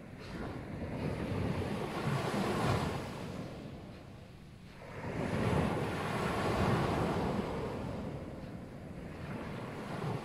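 Surf washing onto the beach in two long swells of rushing noise, with wind buffeting the microphone.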